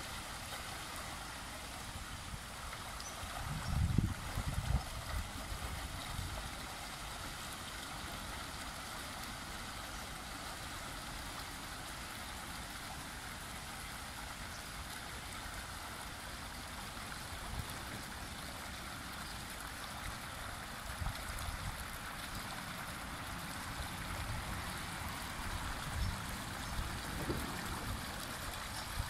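Dolphin robotic pool cleaner working underwater, its pump outlet jetting water up through the surface in a steady splashing gush. A few low bumps break in, the loudest about four seconds in.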